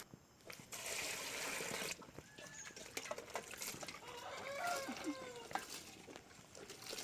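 Water splashing as cut mushroom pieces are rinsed by hand, with faint clicks of handling. About four seconds in, a bird gives one call that rises and falls.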